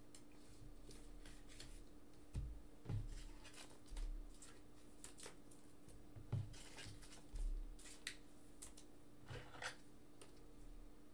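Faint handling noises of trading cards and packs on a desk: scattered light clicks and rustles with a few soft thumps, over a steady low hum.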